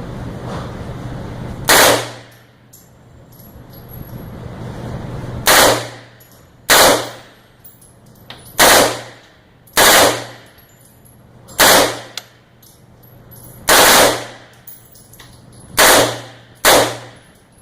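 MP5 submachine gun fired in single shots, nine in all, one to two seconds apart, each crack trailing a short ringing echo, over a steady low hum.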